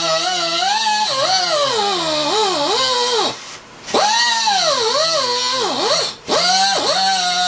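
A small handheld cut-off wheel tool cutting at the petcock fitting and its bolts on a plastic ATV fuel tank. Its whine rises and sags in pitch as the wheel is loaded into the work. The trigger is let off briefly twice, about three and a half seconds in and again about six seconds in.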